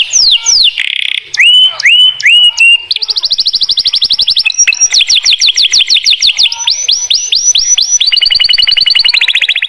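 Domestic canary singing: a few quick down-slurred whistles at first, then a long run of very fast trills and rolls, each held for a second or two before switching to another pitch.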